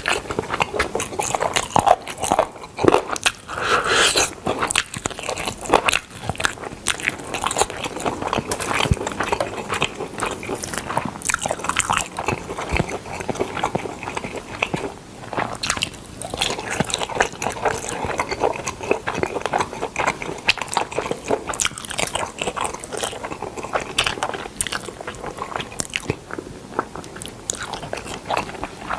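Close-miked eating of smoked chicken: continuous wet chewing and biting, with many irregular sticky clicks and crackles of the meat and skin being torn and chewed.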